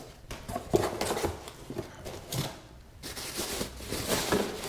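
Packaging handled by hand: a foam insert scraped and knocked against cardboard, with a few light knocks, then white wrapping rustled and crinkled from about three seconds in.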